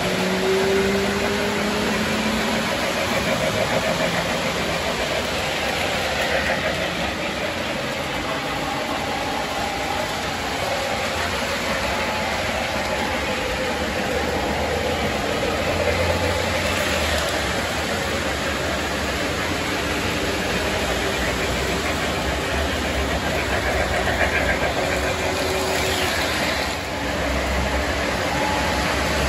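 Model trains running on a layout: a steady mechanical rumble of wheels and motors on the track.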